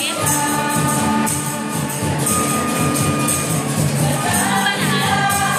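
Live worship song played by an ensemble of acoustic guitars with a flute, with voices singing along and jingling percussion.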